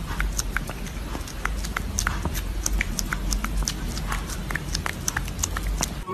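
Cat making a fast, uneven string of short, high squeaks, about four a second, over a steady low rumble.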